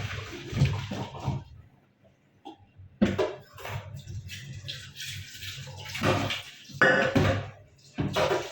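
Water running and splashing as boiled pork is rinsed, in irregular bursts with short pauses, over a steady low hum.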